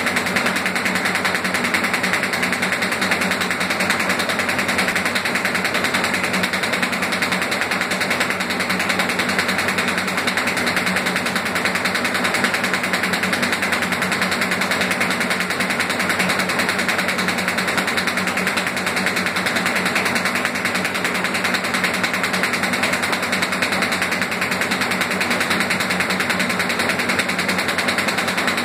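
Automatic paper envelope making machine running steadily, a fast, even mechanical clatter.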